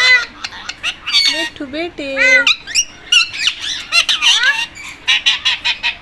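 Pet Indian ringneck and Alexandrine parakeets calling and chattering: a quick run of short, loud calls that rise and fall in pitch.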